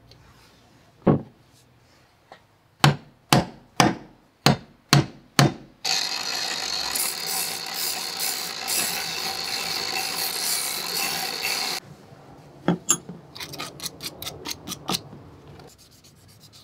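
Six sharp metal knocks in quick succession, then an angle grinder with a polishing disc runs steadily for about six seconds as a small steel pin is held against it, and cuts off suddenly. Lighter clicks and rubbing of small metal parts follow.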